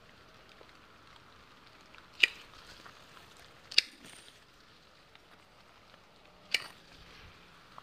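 Hand pruning shears snipping green water shoots off an apple tree during summer pruning: three separate sharp snips.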